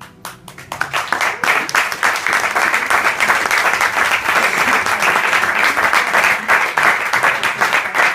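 Audience applauding at the end of a song, building quickly over the first second into steady, loud clapping.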